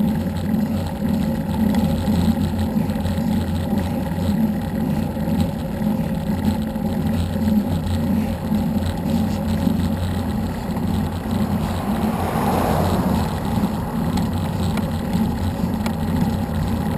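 Steady low rumbling wind noise buffeting an action camera's microphone as it moves along the road, with road noise mixed in. A brief swell about twelve seconds in.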